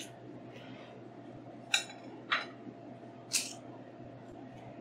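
A ceramic kitchen knife cutting through an onion and being laid down on a wooden cutting board: three short, crisp sounds about a second apart, over a faint steady hum.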